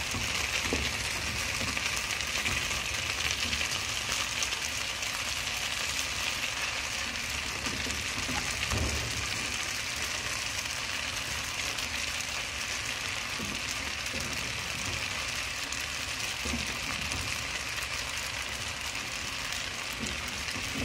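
Spaghetti and diced pancetta sizzling in a frying pan, a steady hiss, with a few soft knocks as wooden spatulas toss the pasta.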